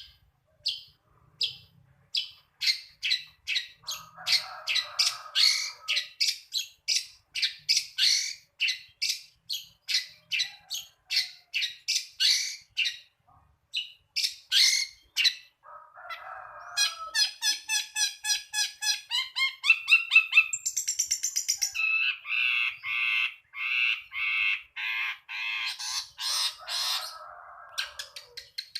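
Long-tailed shrike (cendet) singing a long, varied song of mimicked phrases: a run of sharp repeated notes at about two to three a second with a harsh rasp mixed in, then, from about halfway, fast trills and rapid chattering.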